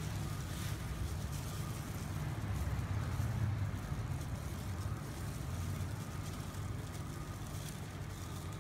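Steady low mechanical hum, a little louder around three seconds in.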